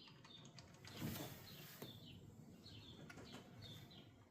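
Small bird chirping over and over in the background, short falling chirps about two or three a second. A brief rush of noise comes about a second in.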